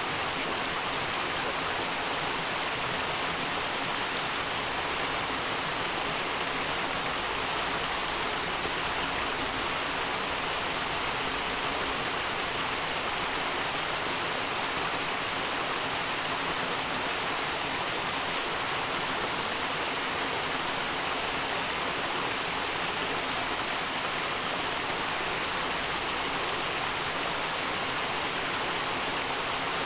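A small wild mountain stream rushing steadily: an even, hissing wash of water with no clear beat.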